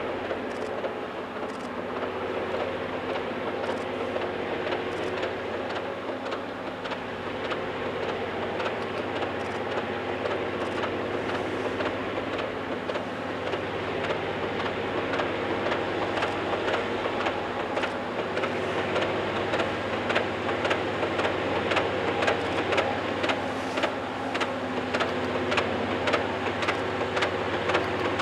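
Union Pacific rotary snow plow working through deep snow, pushed by diesel locomotives: a steady engine drone with a hum of several held tones, slowly growing louder as it approaches. From about halfway on, a rapid clatter of sharp clicks sets in and gets stronger toward the end.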